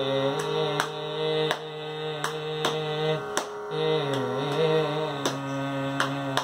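A man singing a long held, ornamented line of a Carnatic krithi in raga Dharmavathi, the notes bending in a wavering slide about four seconds in. Sharp percussive strokes keep the Khanda Chapu tala beneath the voice.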